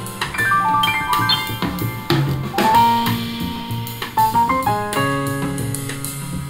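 Piano-led jazz with drum kit played back through a pair of small DIY Baltic birch plywood speakers with walnut front baffles, in a sound test. The small enclosures are not full range, so the playback has little deep bass.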